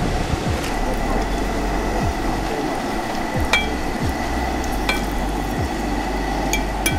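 Cashew nuts deep-frying in hot oil in a wire spider strainer, a steady sizzle. A few short clicks sound through it.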